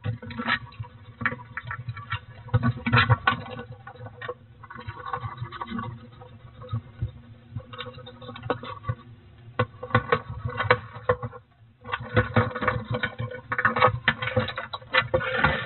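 A hedgehog moving about on the wooden floor of a hedgehog house, making irregular scratching, scuffling and knocking sounds against the wood.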